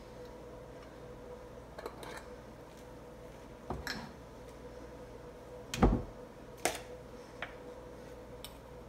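A few light clicks and knocks of kitchen items being handled, the loudest a dull thump about six seconds in, over a faint steady hum.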